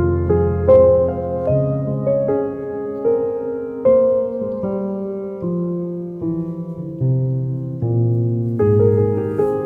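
Background piano music: a slow, gentle melody over held chords.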